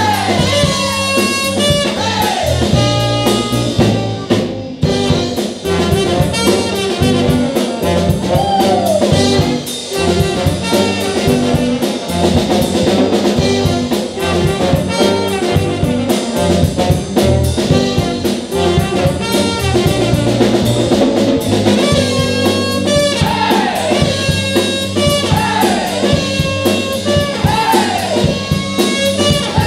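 Live band with a horn section of trumpets, trombone and saxophone playing an up-tempo jazzy tune over electric guitar and drum kit. Near the start and in the last few seconds the band shouts a repeated falling call over the groove.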